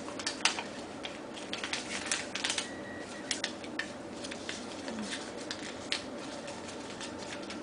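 Paper rustling and crinkling in short, scattered crackles as a sheet of origami paper is folded and creased by hand.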